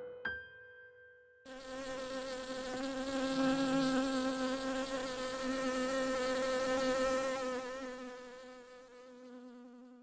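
Buzzing bee sound effect: a steady insect buzz with a slightly wavering pitch starts suddenly about a second and a half in and fades away over the last two or three seconds. Before it, the last piano note of the outro music rings out, with a short click just after the start.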